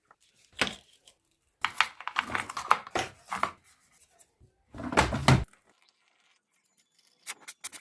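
Several short bursts of scraping, rubbing and knocking, with quick clicks near the end, separated by near-silent gaps.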